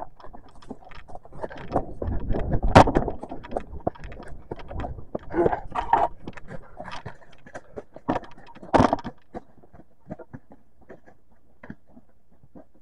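Handling noise from a camera being moved and set up among dry leaves: irregular rustling, scraping and clicking, with two sharp knocks, one about three seconds in and one near nine seconds, then it goes much quieter.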